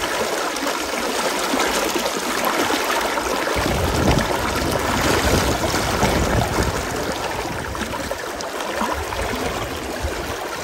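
River water running fast over rocks: a steady rushing hiss, with a deeper rumble joining about three and a half seconds in.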